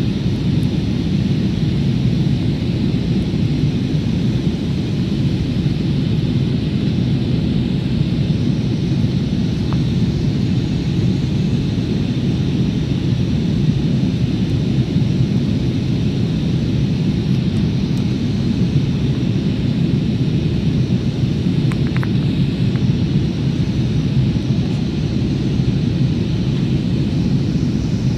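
Jet airliner cabin noise on the descent: the steady rumble of the engines and the airflow past the fuselage, heard from inside the cabin, heaviest in the low range and unchanging throughout.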